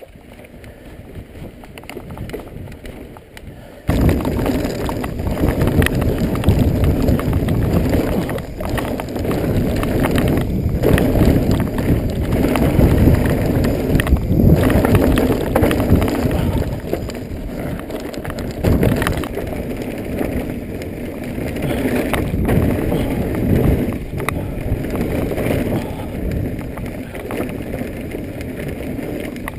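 Mountain bike riding fast down rough dirt singletrack, heard from a camera mounted on the bike or rider: wind buffeting the microphone over a constant rumble, with frequent knocks and rattles from the tyres and frame on the trail. It starts abruptly about four seconds in, after a quieter opening.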